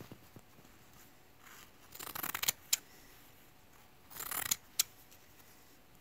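Kitchen scissors with roughly serrated blades cutting through layers of Kevlar cloth. There are two cuts about two seconds apart, each a short snip of about half a second followed by a sharp click.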